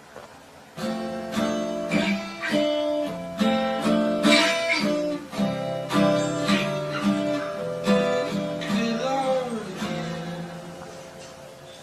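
Background music: an acoustic guitar strumming and picking chords, starting about a second in and fading away near the end.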